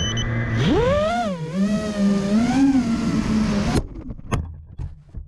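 5-inch FPV racing quadcopter's brushless motors and propellers humming at idle, then whining sharply higher about a second in as the throttle comes up for takeoff, the pitch swinging up and down with the throttle. The sound cuts off suddenly a little past halfway, leaving only a few faint clicks.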